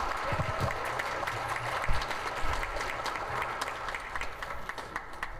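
Audience applauding, the clapping thinning out and getting quieter toward the end.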